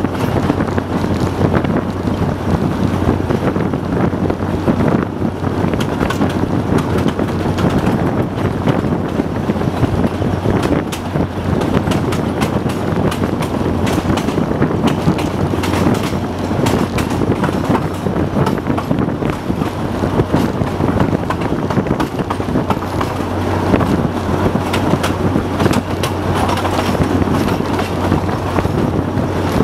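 TU4 narrow-gauge diesel locomotive under way, heard from its cab: its V12 diesel engine runs steadily with a constant low hum, over continuous rattling and clicking of the running gear on the track.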